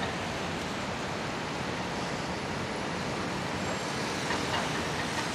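Steady city traffic noise: an even rumble and hiss with no distinct events.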